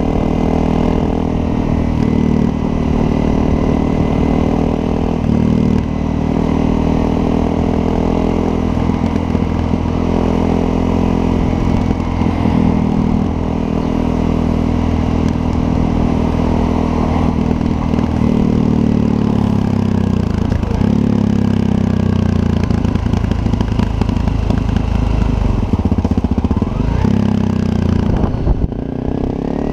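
2016 Honda CRF250L's single-cylinder four-stroke engine running steadily at low revs through a Yoshimura RS-4 exhaust. The engine speed settles a little lower about two-thirds of the way through.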